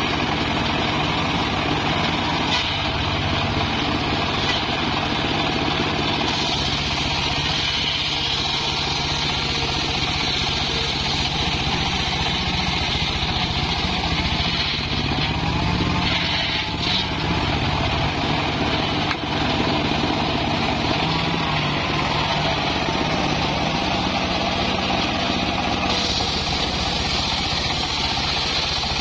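Homemade engine-driven circular sawmill running steadily, its large blade ripping lengthwise through a log.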